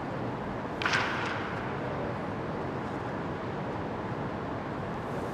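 Steady hall ambience in a large indoor practice dome, with one sharp crack that rings briefly about a second in, followed by a fainter click.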